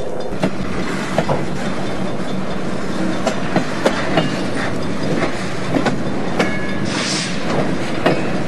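Freight train flatcars rolling slowly past close by: steel wheels clacking over rail joints in an irregular series of sharp knocks over a steady rumble, with a few brief wheel squeals.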